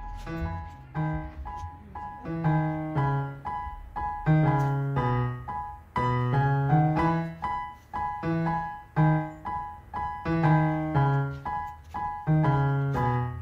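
Background music played on piano: chords and melody notes struck in a steady, repeating pattern.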